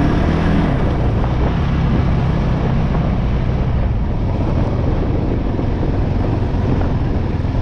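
Kawasaki KFX 450R ATV's single-cylinder engine running steadily under way, with wind noise on the microphone.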